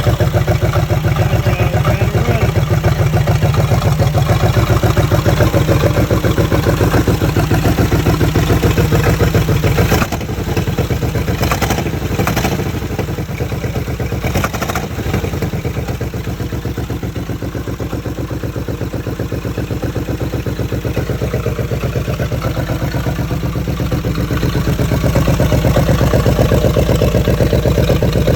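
Chevrolet El Camino engine running with a loud, rough exhaust leak where the exhaust pipe does not fully connect to the manifold. It drops in loudness about ten seconds in, with a few knocks and clatters, and grows louder again near the end.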